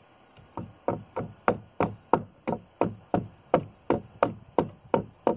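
Hammer blows on a framing nail and lumber, a steady series of sharp knocks about three a second: working out a nail-gun nail that blew out the side of the board.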